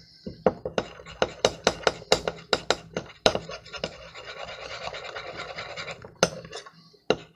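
A metal fork whisking thin tempura batter in a bowl. It gives rapid clicks against the bowl's side, about five a second, then a steadier scraping swish, and a couple more clicks near the end.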